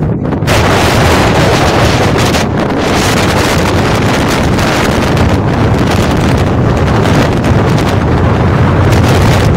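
Strong wind blowing across the microphone: loud, steady wind noise. It eases for a moment at the very start, then stays loud.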